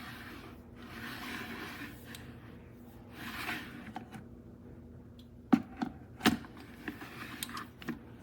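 Handling noise: a few swells of rubbing and scraping, then a quick run of sharp clicks and knocks from a little past halfway.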